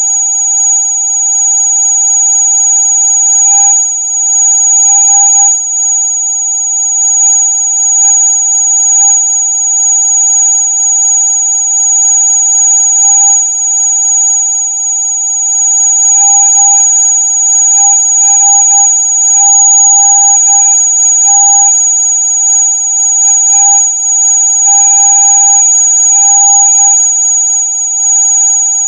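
Electronic rat-repellent sound: several steady, shrill tones held together without a break, the loudest very high-pitched, with faint crackles flickering over them now and then.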